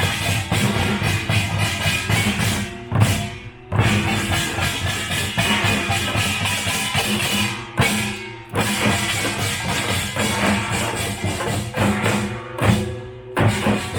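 Korean pungmul (nongak) percussion band playing a fast, loud rhythm on drums and gongs, with short breaks about every four to five seconds.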